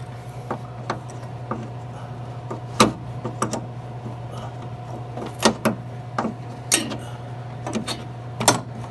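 Irregular metallic clicks and knocks of a hand tool working a bolt loose on a vending machine's refrigeration unit, over a steady low hum.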